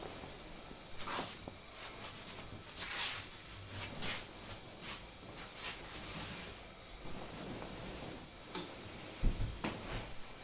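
Soft swishing footsteps of tabi-socked feet sliding over tatami mats, with the rustle of hakama and kimono as a person rises and walks. A low thump near the end as he kneels down on the mats.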